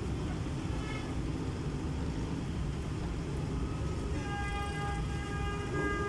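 Steady road-traffic rumble, with a vehicle horn starting about four seconds in and held, with short breaks, to the end.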